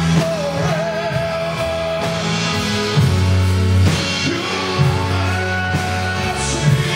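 Live church praise music: a man sings over a drum kit while the band holds sustained chords.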